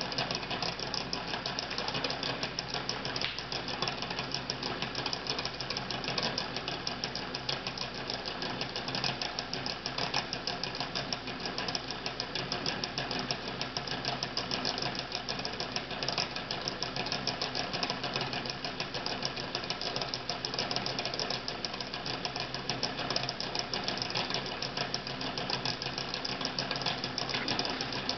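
Homemade Stirling engine running steadily: a fast, even mechanical clatter from its moving parts. It has a glass heating cylinder with an aluminium displacer and two flywheels geared together to turn in opposite directions.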